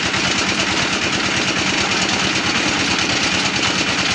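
Homemade rock crusher running under load, breaking up stones with a steady, fast, even rattle and clatter.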